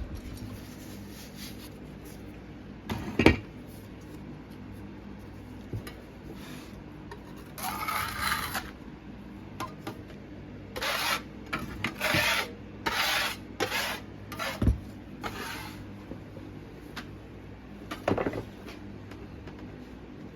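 Scraping and rubbing in short bursts, with one sharp knock about three seconds in: casting sand being packed and worked by hand in a mould flask.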